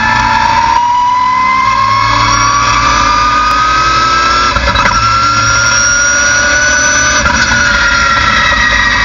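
Mustang race car's engine heard from inside the cockpit, pulling hard in fourth gear with its pitch rising steadily for about seven seconds. Near the end the engine eases off and the pitch falls as the car slows.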